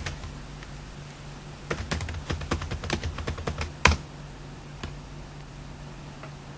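Computer keyboard typing: a quick run of keystrokes, then one louder click about four seconds in as the login is submitted. A low steady hum sits underneath.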